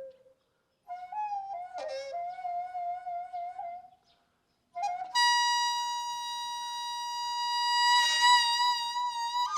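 A solo Korean traditional wind instrument playing a slow gugak melody: short phrases with sliding, bending notes and two brief pauses, then a long held high note that swells near the end, with a bright, buzzy tone.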